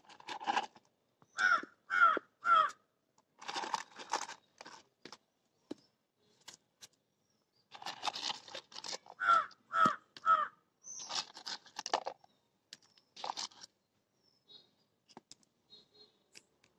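A crow cawing: two runs of three harsh caws several seconds apart, with other rasping calls between them.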